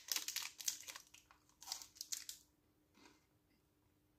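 Plastic wrapper of a Knoppers chocolate bar crinkling as it is peeled back in the hands, a run of short rustles that dies away after about two and a half seconds.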